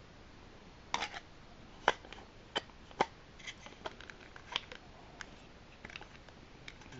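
Sharp plastic clicks and taps from handling a small plastic Darth Vader's TIE Advanced toy as a wing is pried off it. The irregular clicks start about a second in, and the loudest two come near two and three seconds in.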